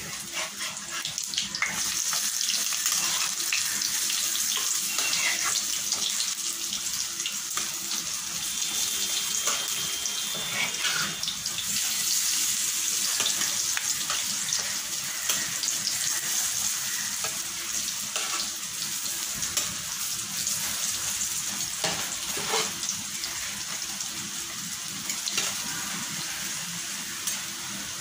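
Dal vadas deep-frying in hot oil: a steady sizzle with crackling, and now and then the scrape of a steel spatula turning them in the pan.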